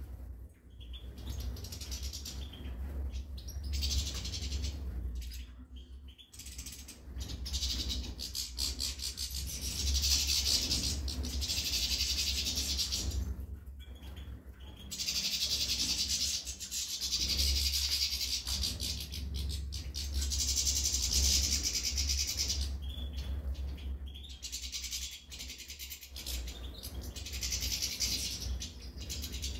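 European goldfinches singing: long twittering phrases lasting several seconds each, with short pauses between them, over a low steady rumble.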